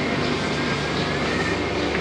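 Steady mechanical drone with hiss, even in level throughout, with a faint thin whine that dips slightly in pitch and comes back.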